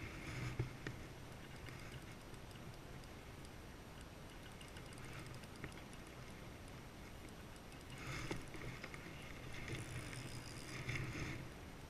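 Small waves lapping and splashing against breakwater rocks, with a few light clicks from the fishing rod and spinning reel near the start and a louder stretch of water and handling noise about two-thirds of the way through.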